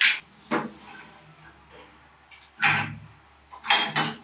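A few short metal clunks and scrapes of motorcycle parts being handled and fitted, coming in four separate bursts with quiet gaps; the last ones come as the painted steel handlebar is set onto the fork stem.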